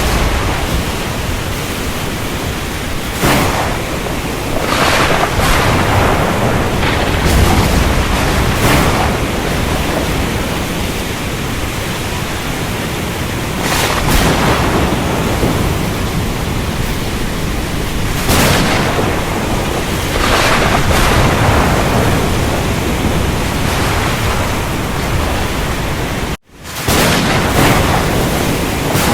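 Steady heavy rain with thunder cracking and swelling every few seconds. The sound drops out for an instant near the end and fades back in.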